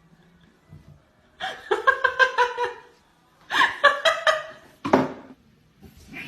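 A person laughing in about three bouts of quick, rapid "ha-ha" pulses, after a second of quiet.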